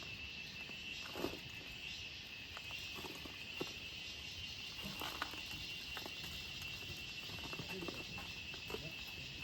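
Steady high-pitched insect chorus, with scattered faint clicks and rustles.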